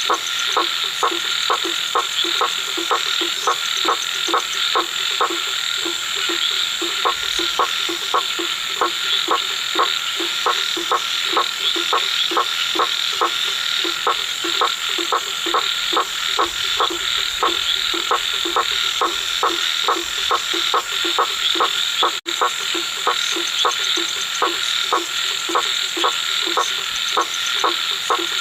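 A frog calling at night: short croaks repeated evenly, about two to three a second, over a steady high-pitched background chorus.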